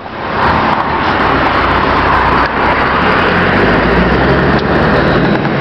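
Scania R620's V8 diesel engine pulling and running steadily, heard inside the truck cab with road and cab noise. It builds up over the first second, then holds steady.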